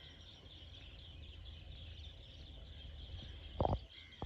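Outdoor waterside ambience: a steady high chirring chorus of birds and insects over a low wind rumble, broken by one short loud sound about three and a half seconds in.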